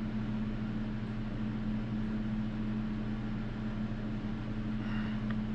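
Steady low electrical hum with a hiss, holding an even pitch throughout.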